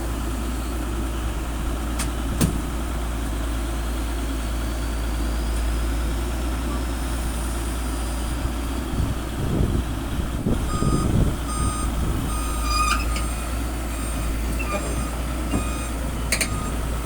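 Excavator's diesel engine running steadily, with a few sharp metallic knocks. A repeating warning beep sounds through the later part.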